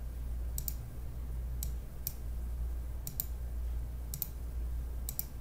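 Computer mouse clicking: a handful of single clicks and quick double-clicks, about a second apart, over a steady low electrical hum.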